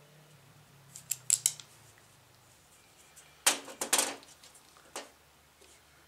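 Small metal and plastic door-handle parts clicking and clattering against a steel workbench as the handle and bracket are assembled by hand: a few light clicks about a second in, then a louder clatter of several knocks around three and a half seconds in, and one more click near the end.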